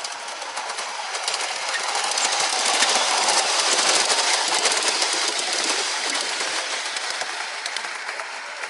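Gauge One model passenger train running past on its track: a continuous rattle of many fine wheel clicks on the rails, growing louder as it comes near, loudest about three to four seconds in, then fading as it moves away.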